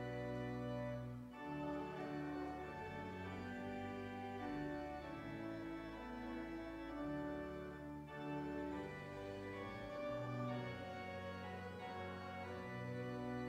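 Church organ playing a hymn in held chords, the harmony moving on about once a second with a bass line under it.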